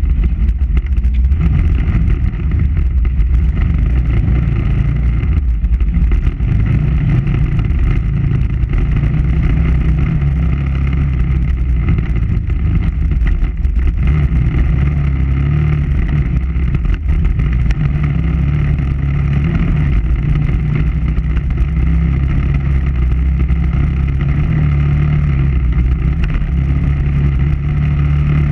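KTM 990 Adventure R's V-twin engine running under way as the bike is ridden, its pitch holding fairly steady with small rises and falls.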